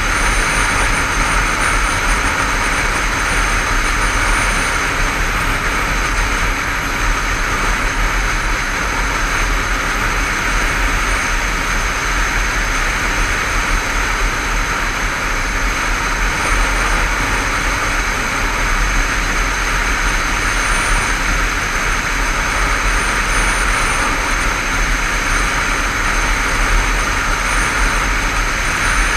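Honda CBF500 motorcycle cruising at steady speed: constant wind rush over the helmet-mounted microphone with the engine's drone underneath, no change in pace or gear.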